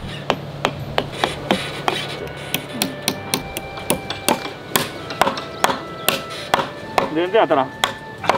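Hammer repeatedly striking a short wooden post set under a timber beam, sharp knocks about three a second, some leaving a brief ringing tone. A short vocal sound near the end.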